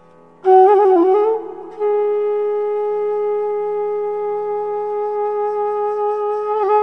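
Background music: a solo wind instrument plays a short ornamented phrase, then holds one long steady note, bending its pitch again near the end, over a faint low drone.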